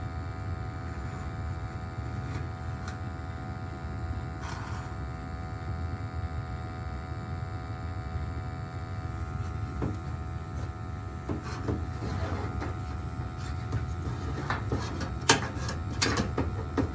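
Crown gas-fired hot-water boiler running on a relight attempt: a steady low hum with a faint steady whine over it. In the second half come scattered clicks and knocks, with one sharp click.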